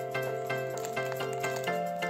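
Background music: soft repeated notes, about two a second, over held chords, with the chord and bass changing near the end.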